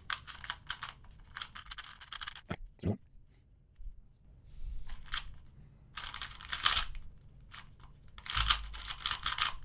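Non-magnetic QiYi 2x2 speedcube being turned fast: rapid bursts of plastic clicking and scraping as its layers slide, with a pause of about a second and a half near the middle.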